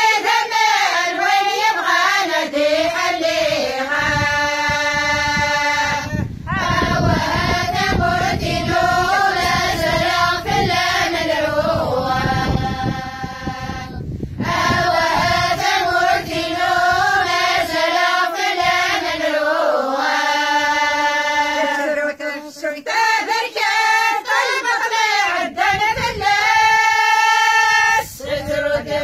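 Women and girls singing a Kabyle (Berber) song together, unaccompanied, in unison. Each phrase ends on a long held note, about every six to eight seconds, with short breaths between phrases.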